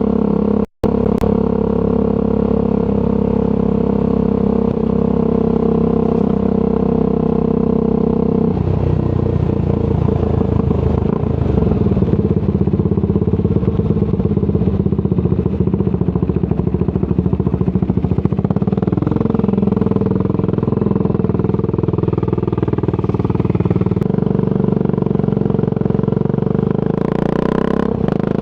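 Triumph Scrambler 400 X motorcycle engine running through an aftermarket Zard exhaust while being ridden. Its note holds steady, then shifts about eight seconds in, with revs rising and falling later. There is a brief burst of hiss near the end.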